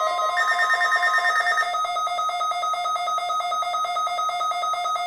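Several weather alert radios sounding their alarms together: rapid electronic beeping at two or more pitches. A steady single tone, the broadcast's 1050 Hz weather alert tone, cuts off about a second in while the beeping goes on.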